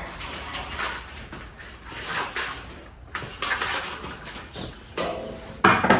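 Scraping, shuffling and clattering as tools and work are handled and positioned on a workbench, with one sharp loud knock near the end.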